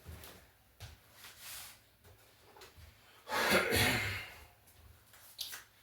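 A man's loud breath through the nose, lasting under a second about three seconds in, among a few faint handling clicks.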